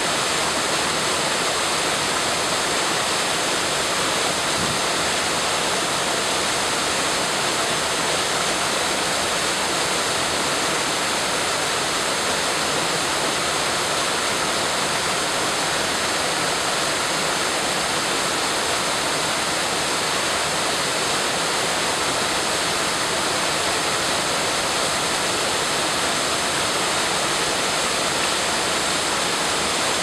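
Small two-tier waterfall pouring over stone steps and splashing into a foaming pool below: a steady, unbroken rush of water.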